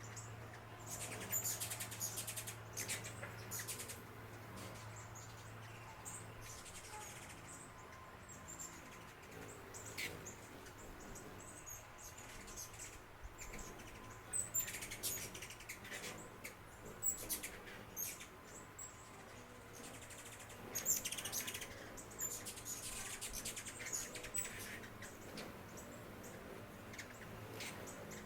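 Small birds chirping: short, high, quick calls in scattered bursts, with a faint low steady hum under the first few seconds.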